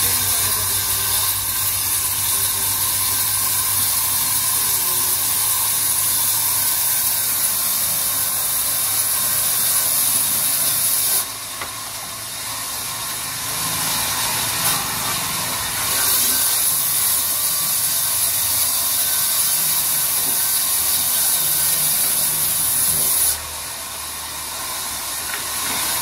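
Sawmill band saw cutting through a log: a loud, steady hissing rasp over the low hum of the machine's drive. The cutting noise drops away sharply about eleven seconds in, comes back a few seconds later, and drops again near the end.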